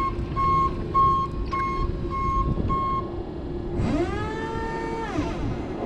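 Cat Mitsubishi FBC18N electric forklift's reversing alarm beeping a little under twice a second, stopping about three seconds in. A pitched electric motor whine then rises, holds and falls away as the truck drives off, and starts rising again near the end.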